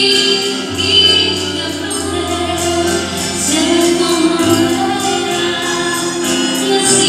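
Music with singing: sustained vocal lines that blend like a choir over bass notes, with a light, regular jingling rhythm on top.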